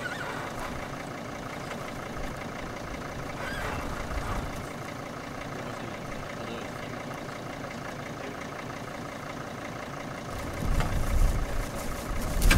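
Van engine idling steadily during a jump-start. A low rumble swells in about ten seconds in.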